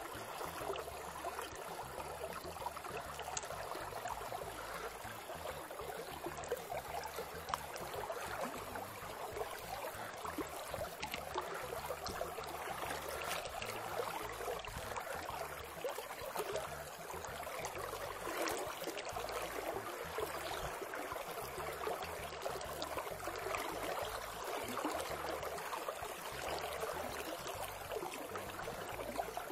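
A small, shallow river flowing steadily, with an even rush and burble of running water.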